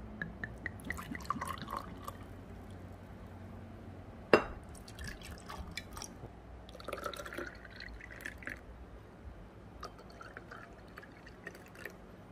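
Soju poured from a glass bottle into two small glasses, then beer poured from a can on top, trickling and splashing in several short pours, with one sharp knock about four seconds in.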